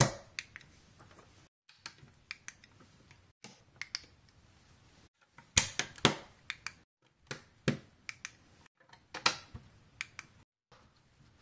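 LEGO plates being pressed onto a baseplate: irregular sharp plastic clicks and snaps, loudest in a cluster about six seconds in and again about nine seconds in.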